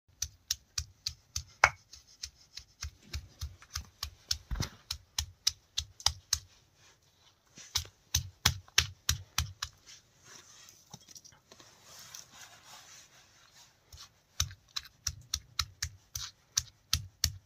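Stone striking a grinding stone in quick light taps, about four a second with a few short pauses, crushing chutney ingredients such as wild garlic and herbs by hand.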